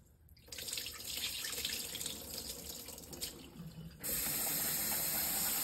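Water sloshing as rice is rinsed by hand, then a kitchen tap turned on about four seconds in, running steadily.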